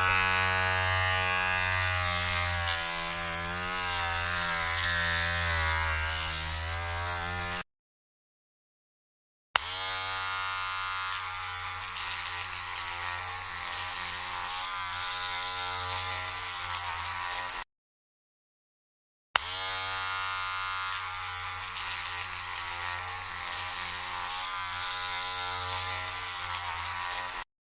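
Electric hair trimmer running with a steady buzz, in three runs of about eight seconds each with short silent gaps between them. The pitch of the buzz wavers slightly within each run.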